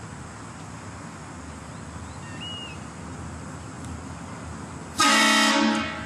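Steady street background noise, then about five seconds in a sudden, loud single blast of a train horn, lasting just under a second before it cuts off.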